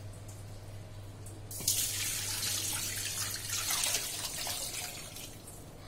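Water poured into a stainless steel bowl over a whole raw chicken, splashing and filling it for a salt brine. The pour starts about a second and a half in and trails off near the end.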